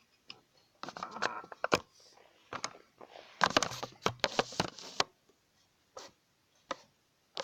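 Handling noise from a plastic remote-control toy car: irregular clicks, knocks and short scraping rattles, busiest about a second in and again from about three and a half to five seconds, then a few single knocks.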